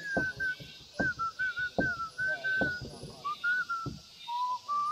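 Music: a whistled melody over a steady beat.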